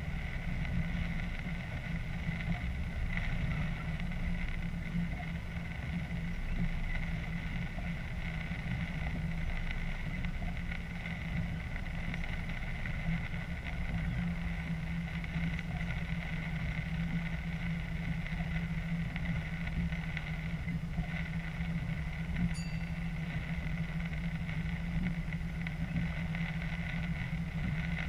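Steady running noise of a diesel train heard inside the driver's cab: a low engine hum with wheels rolling over the track, even and unchanging.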